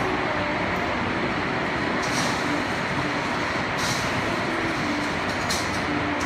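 Heavy rain falling steadily in a dense, even hiss, with three brief brighter splashes.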